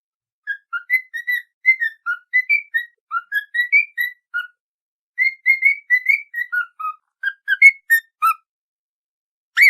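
A whistled tune of short, quick notes, a brief break about halfway through, then a second phrase. Near the end comes a single louder whistle that rises and falls.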